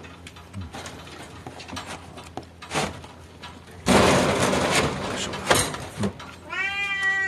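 Scattered light knocks and clicks, then a loud noisy burst lasting nearly two seconds about four seconds in; near the end a domestic cat starts one long meow.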